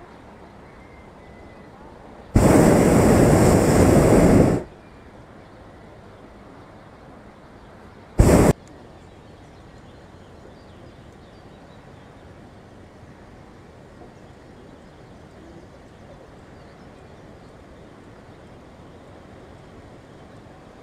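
Hot-air balloon's propane burner fired to heat the air in the envelope. A blast of about two seconds starts a couple of seconds in, and a short burst of under half a second follows about four seconds later. Each starts and cuts off abruptly over a faint steady background.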